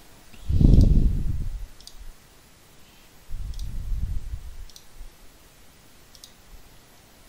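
Computer mouse clicks, about five of them spaced a second or so apart, as menus are opened. Two louder, low, dull rumbles of about a second each come near the start and about three seconds in.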